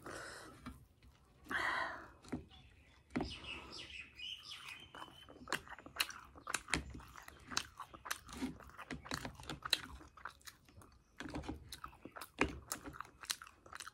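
Close-up chewing and biting of fried semolina puri (suji puri), with many small irregular clicks and smacks.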